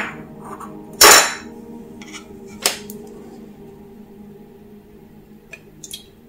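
Plastic utensils and containers being set down on a hard tabletop. A sharp knock comes first, then a louder rough clatter about a second in, another sharp click near three seconds, and a few light taps near the end.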